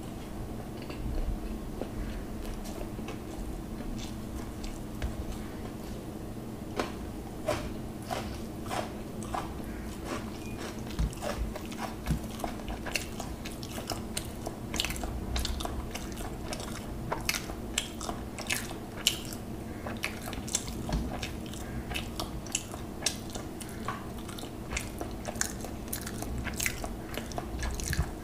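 Close-miked eating sounds of hilsa biryani eaten by hand: chewing and many short wet mouth clicks and smacks, with fingers mixing the rice on a steel plate. The clicks come more often in the second half, over a steady low hum.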